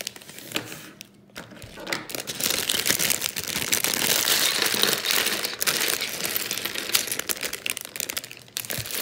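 Clear plastic bag of LEGO pieces crinkling as it is handled and emptied, with small plastic bricks clattering onto the table. The crinkling grows loud and continuous about two seconds in.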